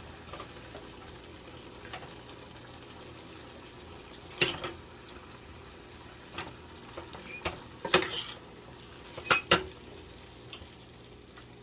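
Ground chicken being stirred and warmed in a frying pan: a steady low sizzle, with a utensil knocking against the pan about four times, two of the knocks in quick succession.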